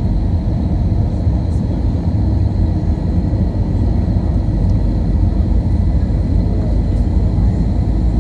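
Jet airliner cabin noise heard from a window seat on the landing approach: a steady low rumble of the turbofan engines and airflow, with a faint high whine over it.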